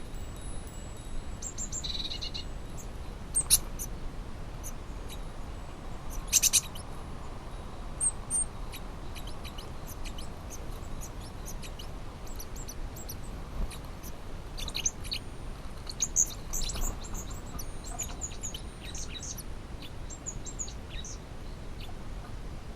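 Small birds chirping in short, scattered calls throughout, over a steady low background noise.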